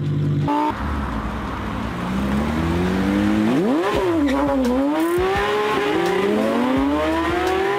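Porsche 911's flat-six engine revving hard as the car accelerates away. The pitch climbs, jumps sharply about three and a half seconds in, dips briefly at a gear change, then climbs again.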